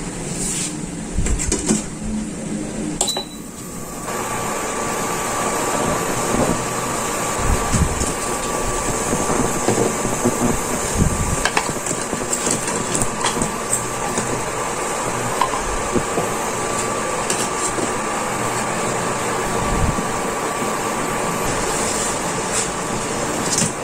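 Soup water boiling in a stainless steel pot on an electric cooktop, a steady bubbling hiss with scattered small clicks and a faint steady tone, louder from about four seconds in.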